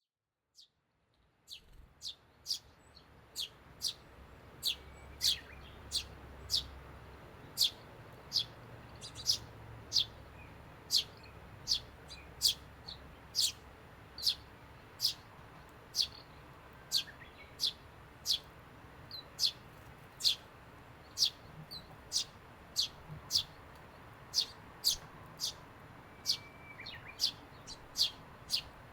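Eurasian tree sparrow chirping over and over: short, sharp, high-pitched single notes at an even pace of about one and a half a second, starting about a second and a half in.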